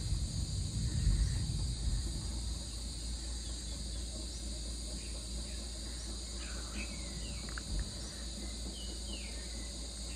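Distant thunder rumbling low, loudest in the first two seconds and then fading to a faint rumble, under a steady high drone of insects. A few short bird chirps come in the second half.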